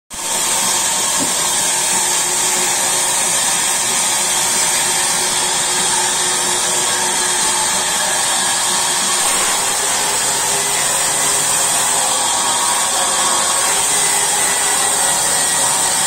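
Large vertical sawmill band saw running steadily, a continuous whirring with a high hiss over it.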